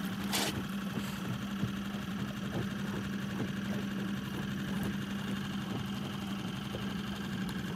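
Boat's outboard motor running steadily at slow trolling speed, a constant even hum, with a brief sharp click about half a second in.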